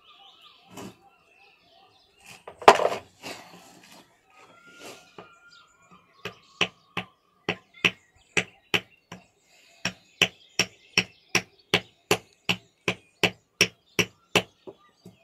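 Fossil nodule being struck by hand to crack it open: one loud knock about three seconds in, then a steady run of sharp stone-on-stone taps, about two to three a second, with a short break in the middle. Faint bird chirps come early on.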